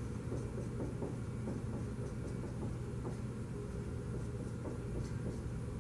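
Steady low room hum, with faint scratches of a dry-erase marker writing on a whiteboard.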